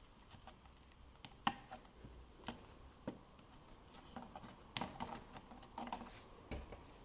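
Faint, scattered light taps and rustles of fingers pressing pieces of foam sponge into the routed trickle-vent slots of a uPVC window frame.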